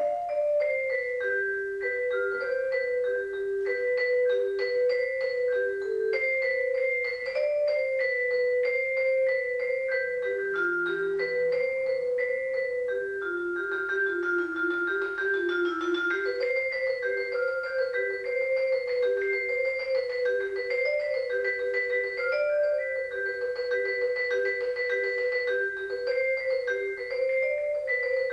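Vibraphone played four-handed by two players: a fast, continuous stream of short notes moving back and forth within a narrow range, the line dipping lower for a few seconds in the middle.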